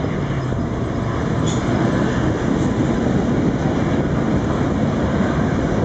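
Freight train cars rolling past, a steady rumble of steel wheels on the rails, while the diesel locomotives' low engine tone fades out about half a second in.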